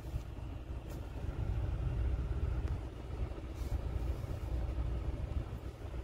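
Car cabin noise: a steady low rumble with air blowing from a dashboard vent, the airflow that is spinning the air freshener's propeller.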